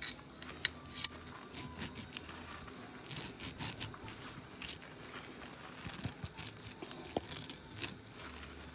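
Knife slicing boiled spleen into thin strips on a plate: faint scraping of the blade through the meat with scattered light clicks.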